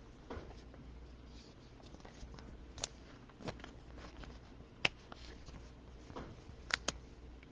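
Faint handling of trading cards and pack wrappers: a handful of short, sharp clicks and light rustles spaced irregularly, two in quick succession near the end.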